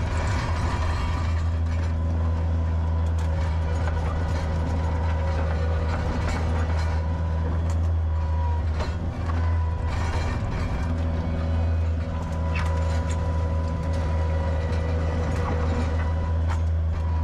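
Skid steer loader's engine running steadily, heard from the operator's seat, with a low hum, a steady whine above it and light rattling and clanking throughout.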